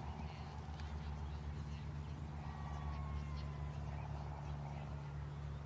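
Outdoor background noise: a steady low hum with a few faint high chirps and a thin, slightly falling whistle midway.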